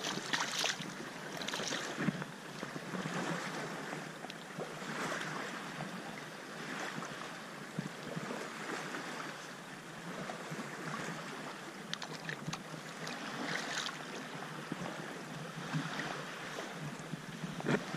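A hooked lake trout splashing as it thrashes in shallow lake water near the start. Under it is a steady rush of wind on the microphone and water lapping around the wader's legs.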